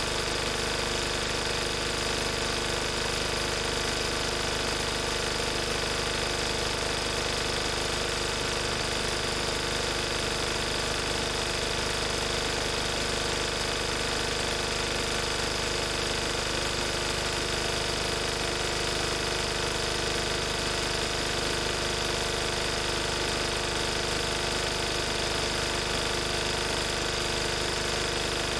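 Lister Petter AD1 single-cylinder air-cooled diesel engine of a 5 kVA generator set, running steadily at its governed 3000 rpm.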